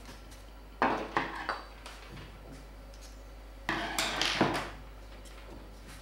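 Two short bouts of clattering and clinking of hard objects, the first about a second in and the second around four seconds in.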